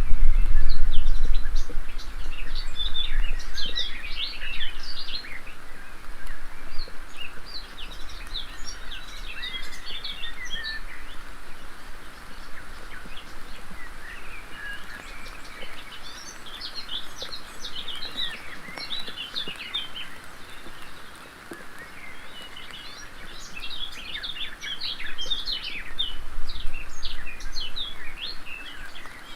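A songbird singing in four bouts of rapid, high chirping phrases over steady background hiss. A low rumble, the loudest sound here, fills the first couple of seconds.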